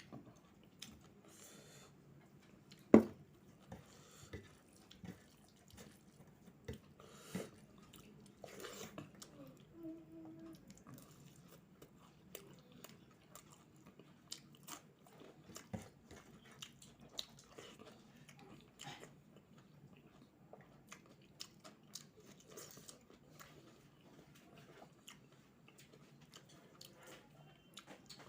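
A person chewing and biting food with small crunches and mouth clicks, and one sharp knock about three seconds in.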